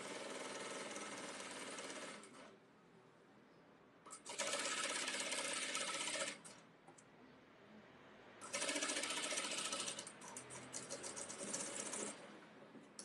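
Industrial lockstitch sewing machine stitching a seam in pajama fabric: three steady runs of stitching with short pauses between them, then a series of brief stop-start bursts near the end as the seam is finished.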